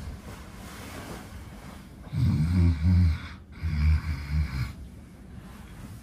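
A man putting on loud, exaggerated fake snores: a long snore about two seconds in, then a shorter one right after it.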